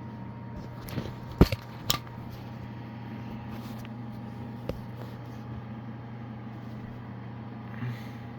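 A few sharp knocks and clicks of small plastic alarm units being handled, clustered between one and two seconds in, with a faint click near five seconds, over a steady low hum.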